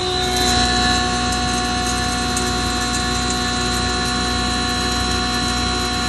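Double chamber grinder machine starting up: it comes up to speed within about a second, then runs steadily with a steady rumble and a high whine.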